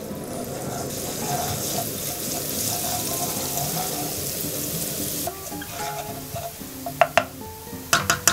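Minced garlic sizzling in oil in a frying pan as it is stirred with a wooden spoon; the sizzle stops suddenly about five seconds in. A few sharp clicks follow near the end, over background music.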